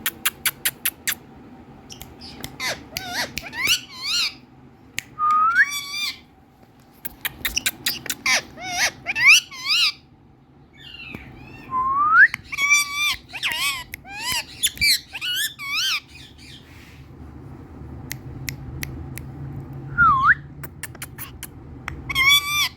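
Indian ringneck parrot vocalising: a quick run of sharp clicks at the start, then bouts of rising whistles and squawking chatter with short pauses between them.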